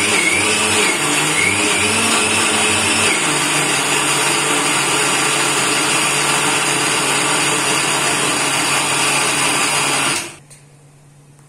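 Electric mixer grinder (mixie) running, grinding soaked dal and fenugreek seeds with water into dosa batter; its pitch wavers for the first few seconds, then holds steady. It is switched off about ten seconds in and the sound stops abruptly.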